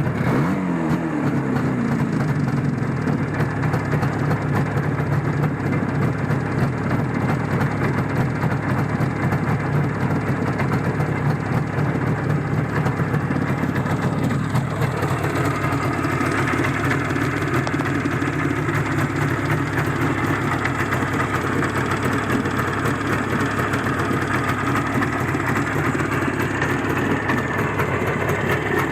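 Izh Jupiter 5 motorcycle's two-stroke twin-cylinder engine running at idle just after a cold start, made with the ignition on and no priming. About halfway through, its note shifts and settles into a different steady idle.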